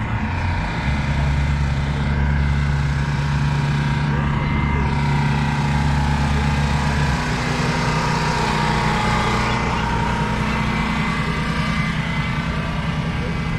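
Boat's outboard motor running at low speed as the boat moves off, a steady low hum whose deepest part drops away about halfway through.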